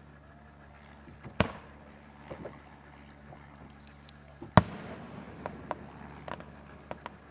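Fireworks shells bursting: a sharp bang about a second and a half in, a louder one about three seconds later, then several smaller pops.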